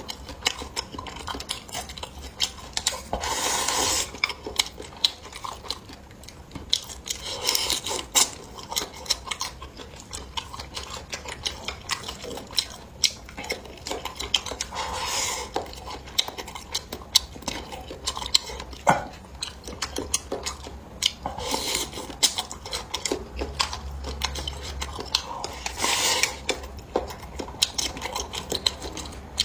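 Eating utensils clicking and scraping against dishes in irregular bursts, with some short louder bursts of handling noise, during a meal.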